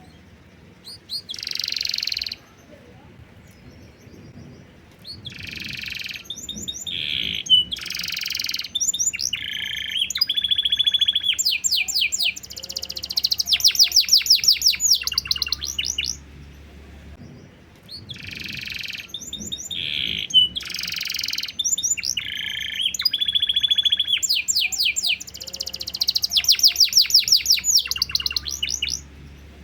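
Domestic canary singing a long, varied song of rapid trills and rolling phrases; the same sequence of phrases comes round again about halfway through.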